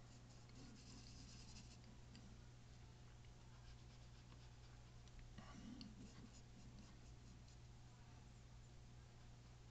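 Faint scratching and tapping of a fine paintbrush working paint onto canvas, over a steady low hum.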